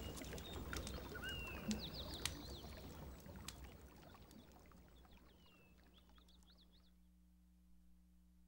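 Shallow seawater lapping and trickling over rocks and seaweed, with small clicks and splashes and a few brief bird chirps. It fades out over several seconds, leaving near silence with a faint steady hum.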